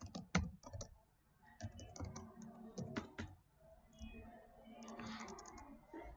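Computer keyboard typing: faint, irregular keystrokes with short pauses between runs.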